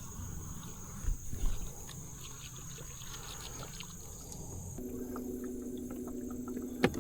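Steady high-pitched drone of insects, with a couple of knocks and faint water sounds about a second in. About two-thirds through, the insect tone drops out and a low steady hum begins. It stops with a sharp click near the end.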